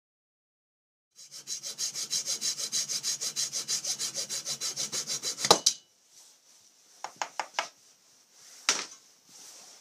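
Hacksaw cutting through hard rudder-post stock clamped in a vise: quick, even strokes for about four seconds, ending in a sharp crack as the offcut comes free. A few light knocks and clicks follow.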